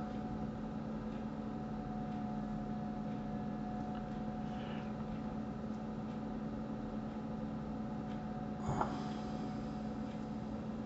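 Steady electrical hum and hiss of the recording's background noise, with a brief soft noise about nine seconds in.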